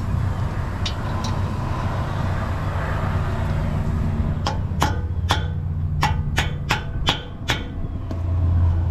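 About eight sharp hammer taps in three seconds, starting about halfway through: a hammer striking an Allen socket set into the brake caliper's set screw. A steady low rumble runs underneath.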